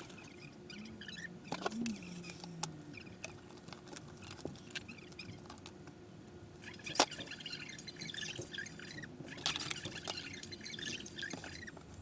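Small clicks, scratches and rustles of hands working wires with pliers, stripping and connecting DC adapter leads, with one sharp click about seven seconds in. A faint steady hum sits underneath.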